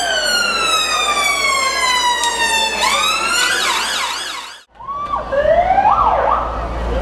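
Fire service van siren: a long, slowly falling wail, then a fast up-and-down yelp. It breaks off abruptly a little past halfway, then comes back with sweeping wails.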